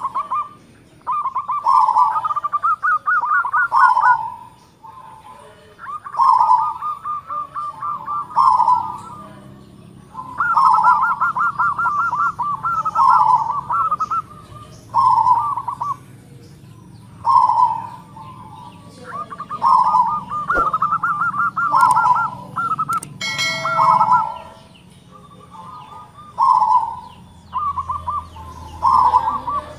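Local perkutut (zebra dove) singing in its big voice. It repeats song phrases every few seconds, each a quick rattling trill run into round coos, with short pauses between phrases.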